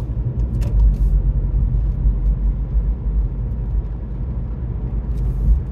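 Steady low rumble of a car driving, engine and tyres heard from inside the cabin, with a few faint clicks about a second in.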